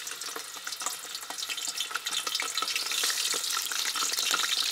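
Skinned frogs frying in hot oil in a steel wok, sizzling and crackling, and getting louder as more pieces go into the oil.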